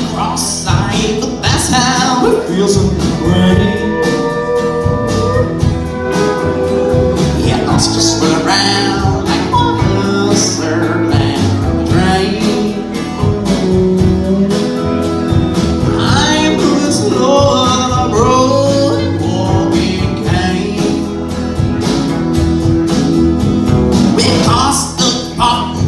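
Live country band playing: acoustic guitar, upright bass, electric guitar and steel guitar together at a steady, full level.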